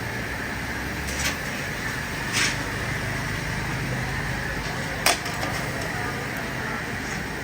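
Steady background noise of a busy street-food setting, broken by three sharp clacks: about a second in, about two and a half seconds in, and a louder one about five seconds in.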